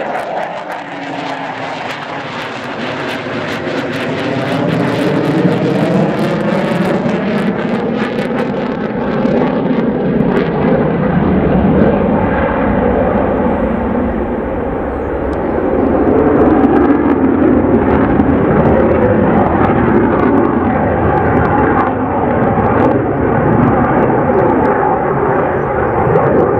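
F-15 fighter jet's twin turbofan engines passing overhead on a flyby after coming in too high to land. The jet noise swells over the first several seconds with sweeping tones and crackle as it passes, dips briefly about halfway through, then stays loud.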